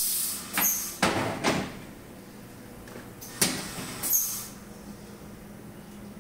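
Metal electrical-cabinet door being unlatched and swung open: a sharp latch click at the start, scraping and rattling as the door moves, and another sharp knock about three and a half seconds in. A steady low machine hum runs underneath.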